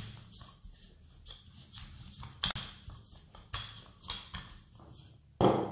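Wooden rolling pin rolling out dough on a stainless steel worktop: irregular soft knocks and rolling strokes, with a louder thump near the end.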